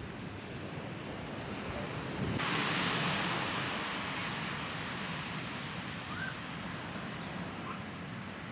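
Steady wash of ocean surf and wind noise. About two and a half seconds in it switches abruptly to a brighter, louder hiss, then eases off a little.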